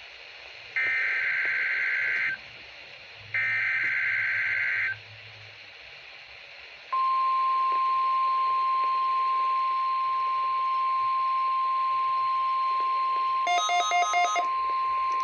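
NOAA Weather Radio test signal. First come two SAME header data bursts, harsh digital screeches about a second and a half long, repeated a second apart. After a pause of about two seconds, the steady 1050 Hz weather-alert alarm tone starts about seven seconds in. Near the end, a quick flurry of electronic beeps sounds over the tone for about a second.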